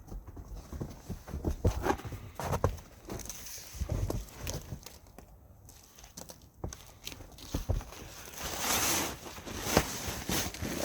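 Irregular thumps, knocks and footsteps as a person works at a snow-covered tent, with a stretch of rustling, scraping noise near the end.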